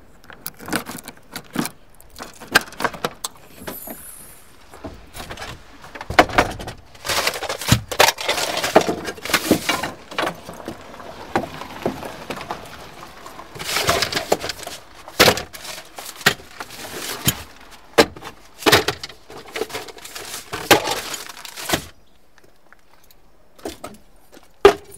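A long run of irregular knocks, clatters and crashes in dense clusters. They drop away for a couple of seconds near the end, then there is one last sharp hit.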